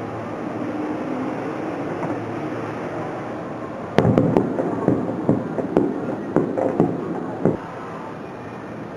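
Aerial fireworks bursting: after a steady background hiss, a rapid string of about ten sharp bangs begins about four seconds in and runs for roughly three and a half seconds.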